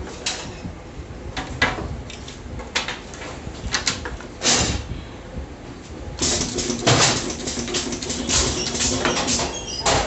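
Automatic pneumatic photo-frame corner-pinning machine clamping moulding and driving V-nails: a run of sharp clunks and air hisses. From about six seconds in there is a denser stretch of clattering and hissing over a steady hum, lasting about three seconds.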